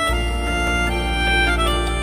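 Background music: a sustained melody line over a steady low drone.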